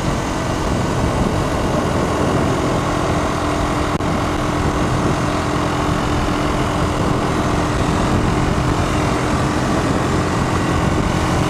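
KTM 125 Duke's single-cylinder 125 cc engine running at a steady cruise, its note holding even, under heavy wind rush over the microphone.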